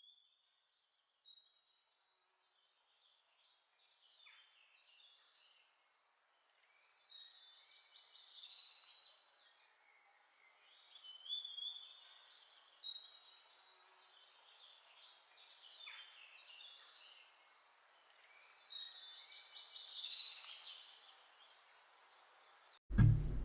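Faint songbirds chirping and singing in short high phrases, several seconds apart, with quiet between them. Strummed acoustic guitar music cuts in loudly just before the end.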